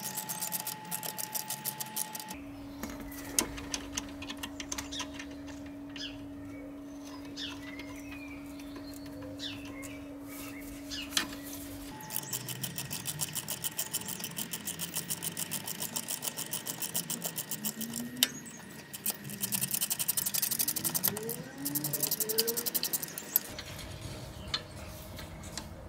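Ratchet wrench clicking in rapid, even strokes as it runs in the mounting bolts of a new ride-height sensor on a Range Rover L322's front suspension. A steady hum runs underneath from about two to twelve seconds in.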